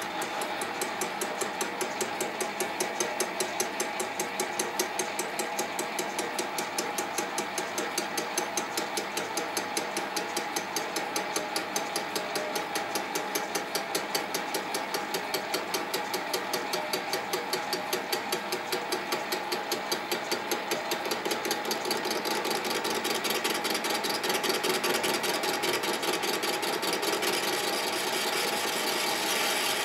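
Bench lathe taking a facing cut across an eccentric strap spinning in a four-jaw chuck, about 60 thou to come off. The cut goes with a fast, even pulsing that turns louder and steadier in the last third.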